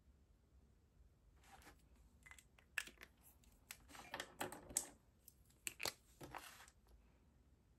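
Markers being put down and picked up on a desk beside a ring planner: a string of light rustles and handling noises with a few sharp clicks, the loudest about three, five and six seconds in.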